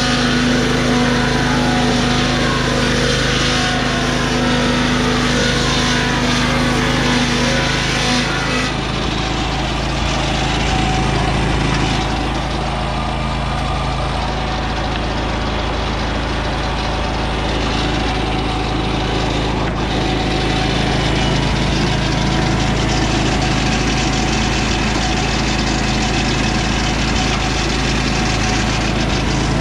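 Lucas Mill 618 swing-blade sawmill running on its Briggs & Stratton Vanguard 18 hp V-twin engine. A steady whine from the saw stops about nine seconds in, and the engine runs on steadily after that.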